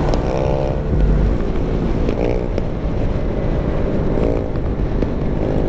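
Riding noise from a Yamaha Mio scooter at cruising speed: its small single-cylinder engine running steadily under wind rush and low buffeting on the camera's microphone.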